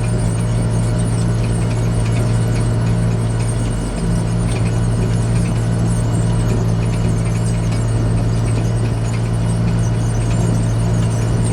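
John Deere 8410 tractor's diesel engine running under steady load, a constant low drone with a brief dip about four seconds in, and faint intermittent high squeaking over it.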